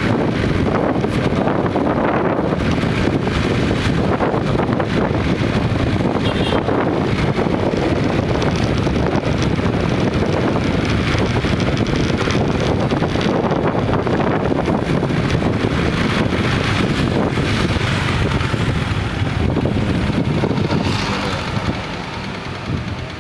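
Steady rumble of road traffic mixed with wind on the microphone, easing off a little near the end.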